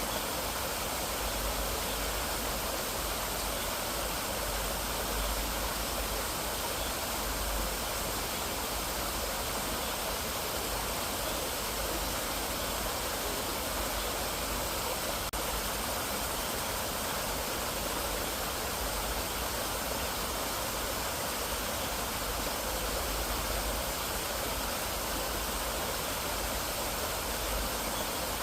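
Mountain valley stream, water rushing steadily over rocks in an even, unbroken hiss, with a low rumble underneath.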